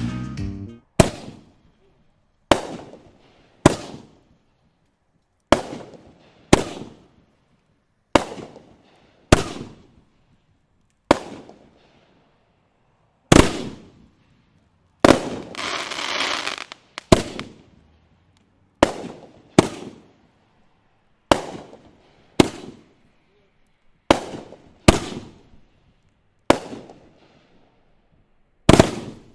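Aerial fireworks going off: about nineteen sharp bangs, one every second or two, each dying away in a trailing echo. About halfway through there are a couple of seconds of crackling.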